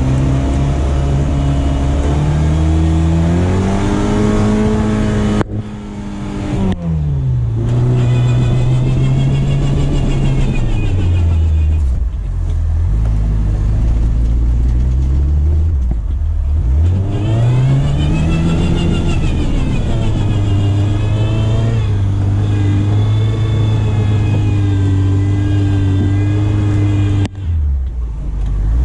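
Suzuki SJ410's four-cylinder engine revving hard under load through deep snow, its pitch climbing and falling again in long sweeps. The engine note drops away briefly about six seconds in and again near the end before picking back up.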